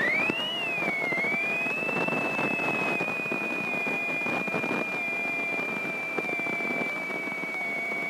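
A small Grumman single-engine airplane's engine just after starting: a high whine climbs as the engine catches, overshoots about half a second in, dips, then settles into a nearly steady pitch that sags slowly as the engine idles, over a rough mechanical noise.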